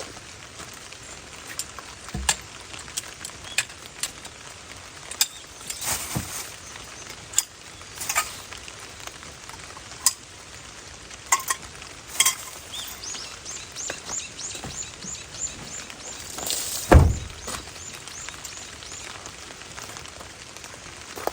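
Camping gear being handled and packed in the rain: scattered clicks, clinks and knocks over a steady rain hiss, a quick run of ticks about two thirds through, and a heavy thump just after it.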